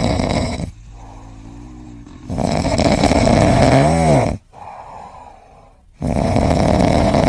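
A pet snoring loudly in long rasping breaths, three of them about three seconds apart. The middle breath ends in a short squeak that rises and falls in pitch.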